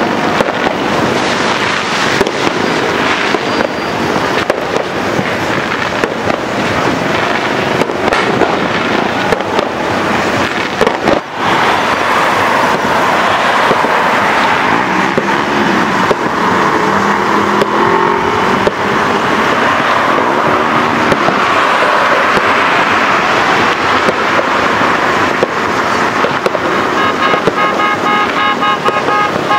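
Dense, continuous crackling and banging of New Year fireworks and firecrackers, with vehicle horns tooting through it; a steady horn-like tone sounds near the end.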